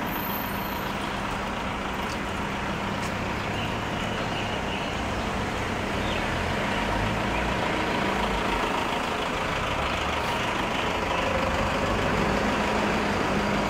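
Street traffic noise with a heavy vehicle's engine running, a steady rumble and hum that grows slightly louder in the second half.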